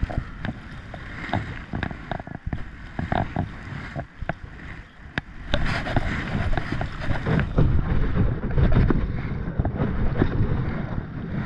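Kayak paddle strokes dipping and splashing, with river current rushing and lapping against the hull. The water gets louder about halfway through as the kayak runs into choppier, riffled water.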